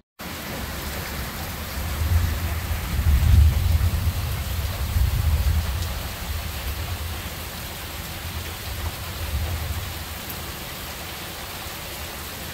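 Heavy rain pouring steadily in a thunderstorm. A low rumble of thunder builds about two seconds in, is loudest around three to five seconds, and dies away over the next few seconds.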